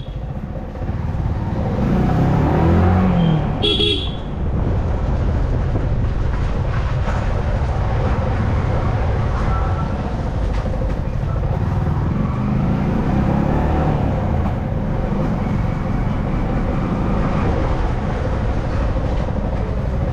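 Yamaha R15M motorcycle's single-cylinder engine running at low speed, with a short horn beep right at the start and another about four seconds in.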